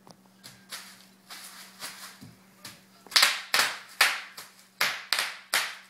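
Bubble wrap crackling and popping under a toddler's bare feet as he stamps and jumps on it. Lighter, scattered crackles at first, then from about three seconds in a run of loud, sharp bursts, about three a second, one with each landing.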